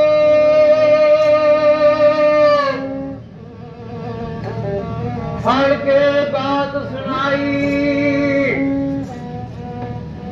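A man singing Puadhi akhada folk verse in a high, strong voice: one long held note, then after a short pause a second phrase that bends in pitch.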